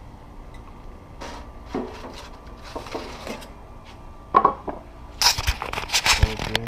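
Handling clatter on a portable propane grill: a string of knocks on the metal grate and crinkling of aluminium foil as a foil-wrapped fish is laid on it, busiest and loudest in the last second and a half.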